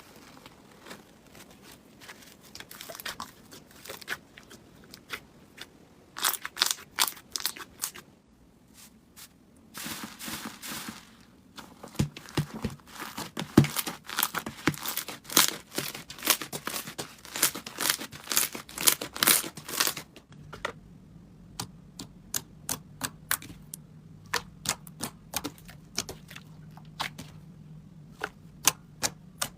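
Slime being pressed and worked by hand, giving crackling pops and clicks in quick runs that thin out to separate pops in the last third.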